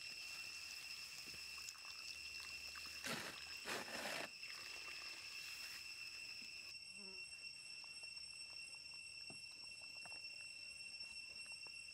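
Water poured into a wok of simmering goat curry, splashing loudest for about a second around three seconds in. Insects trill steadily and high-pitched throughout, and a few light knocks of a ladle in the wok come near the end.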